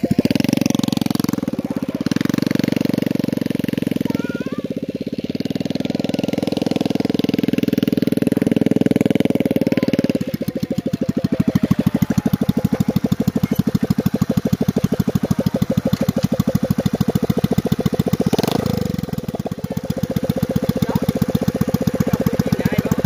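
Rebuilt 110cc four-stroke step-through motorcycle engine, revving under load for about the first ten seconds. It then settles into a steady idle with distinct, evenly spaced firing beats. There is a short blip a little before the end.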